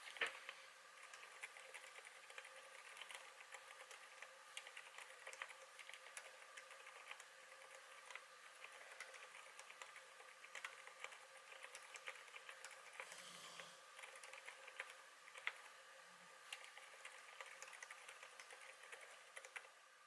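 Typing on a KBD8x MKII tenkeyless mechanical keyboard with lubed MX Zilents silent tactile switches: a steady stream of very quiet, muted keystrokes. A faint steady hum from the camera's built-in microphone sits under them.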